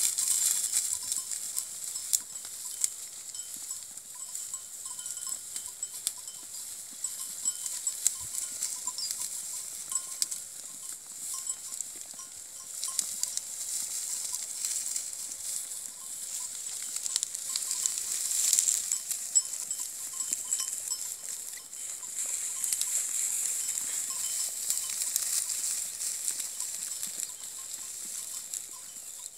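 Sheep grazing close by: many small crunching and tearing clicks as they crop dry stubble and step through straw, over a steady high-pitched hiss.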